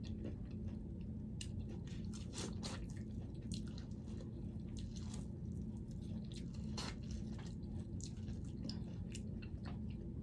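Close-miked chewing of seafood-boil food, with scattered wet clicks and smacks of the mouth, over a steady low hum.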